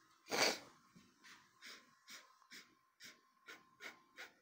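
A person sniffing in quick short breaths, about two to three sniffs a second, the first one loudest.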